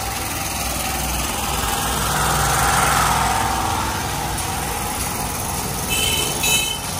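A vehicle engine running steadily, growing louder to a peak about three seconds in and easing off again, with a few short high-pitched sounds near the end.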